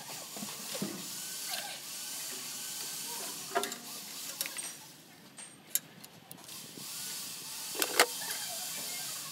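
A few sharp clinks and knocks as a gloved hand works at the diesel engine's hoses and fittings, the loudest near the end, over a steady hiss.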